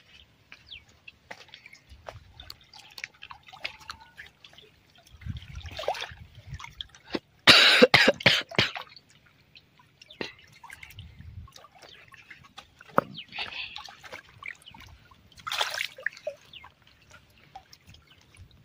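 Water splashing and dripping as a keep net with live fish in it is handled and lifted at the water's edge, with scattered small drips and knocks throughout. A loud burst of splashing comes a little before halfway, and a shorter one later.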